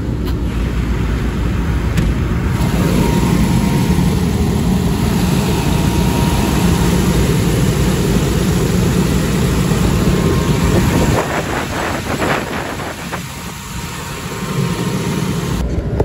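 York rooftop air-conditioning unit running steadily, a low mechanical rumble from its fans. It grows louder about three seconds in and drops off about eleven seconds in, with a few short rattling clicks a second or two later.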